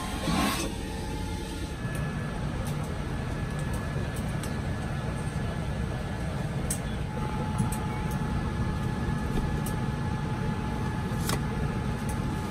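Steady low rumble of a Boeing 787-9 airliner cabin, with a brief bump right at the start and a few faint light clicks scattered through.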